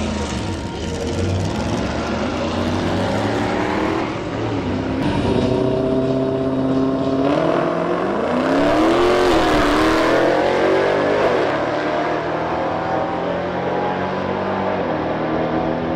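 Dodge Challenger Hellcat's supercharged V8 idling at the drag strip start line, then held at a steady higher rev, then launching at full throttle about eight seconds in, its note rising, dipping at an upshift and climbing again as it runs down the track.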